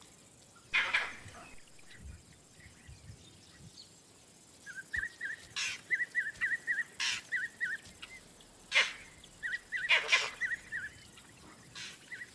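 Vervet monkey alarm calls: about five loud, harsh barks spaced a second or two apart, with runs of quick, high chirps between them from about five seconds in. The calls warn of a predator close by.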